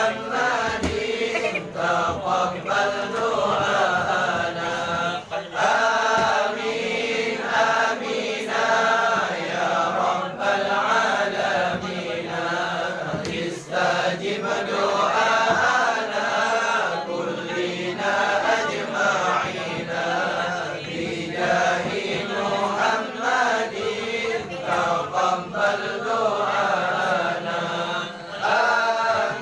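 A group of men chanting sholawat together, devotional Arabic blessings on the Prophet, in one continuous melodic chant.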